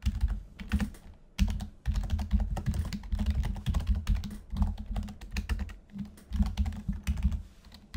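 Typing on a computer keyboard: rapid key clicks in runs, broken by a few short pauses.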